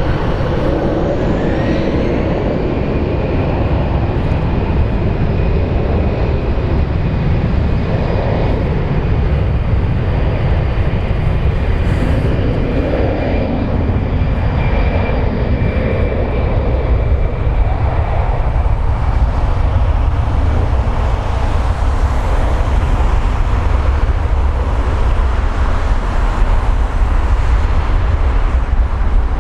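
Airbus A320 jet airliner's engines at takeoff thrust: a loud, steady low rumble with a high turbine whine that rises in pitch over the first couple of seconds, holds, then fades out about two-thirds of the way through while the rumble goes on.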